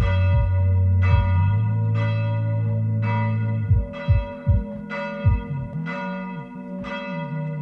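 A bell tolling, struck about once a second, each strike ringing on into the next. A low steady tone sounds underneath and breaks up about halfway through.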